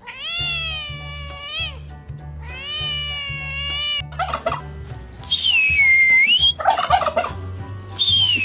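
Animal and bird calls over background music with a steady beat: two long drawn-out calls, then short rattling calls alternating with loud whistled calls that fall and then rise in pitch.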